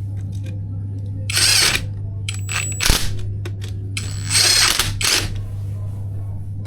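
Cordless electric screwdriver whirring in two short bursts, with a sharp click between them, as terminal screws are driven. A steady low hum runs underneath.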